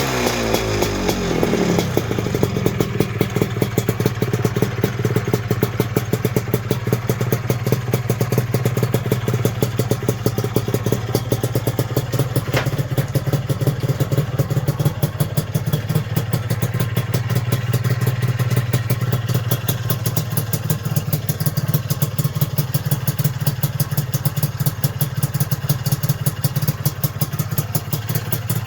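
Lambretta scooter's single-cylinder two-stroke engine with a tuned Imola 198 kit, its revs dropping back in the first couple of seconds and then idling steadily with an even, rapid pulse.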